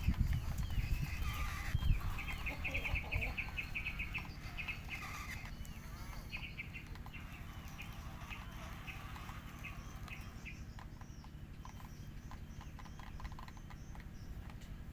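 Birds calling in rapid runs of short, repeated chirps or clucks, thinning out after about six seconds, over a steady low rumble.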